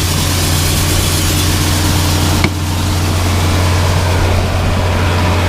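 Steady low hum of running farm machinery under a broad hiss, with a single sharp click about two and a half seconds in, after which the hiss drops away.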